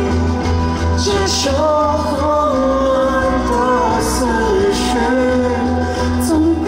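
Pop band music with a singer's voice holding long, gliding notes over a steady deep bass.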